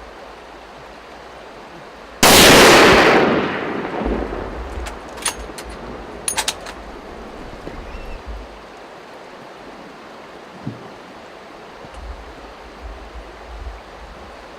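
A single rifle shot at a moose about two seconds in, dying away over a second or so. A few light, sharp clicks follow some seconds later.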